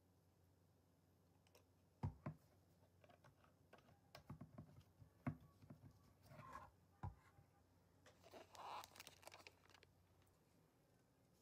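Quiet handling of a small plastic coffee bottle on a wooden table: a few sharp knocks as it is put down and picked up, and short scratchy rustles as its screw cap is turned.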